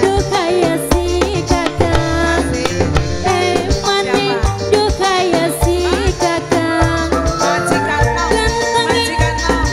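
Live band music with a steady drum beat under a melody line.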